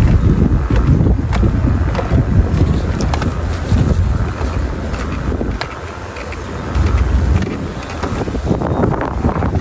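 Wind buffeting the microphone: a loud, uneven low rumble that dips briefly a little after the middle and then picks up again.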